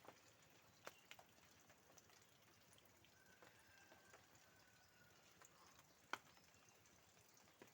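Near silence: a faint outdoor background with a few scattered soft clicks and crackles, the sharpest about six seconds in. A faint thin steady tone lasts about a second and a half near the middle.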